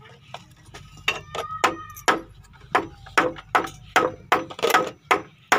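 Claw hammer driving a nail into a block of wood: a steady run of sharp blows, about three a second, louder from about two seconds in, with a short metallic ring on the early lighter taps.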